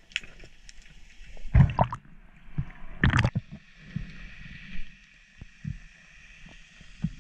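Muffled underwater sound picked up through a camera housing: water moving and gurgling around a swimming diver, with a string of dull knocks, the loudest two about one and a half and three seconds in.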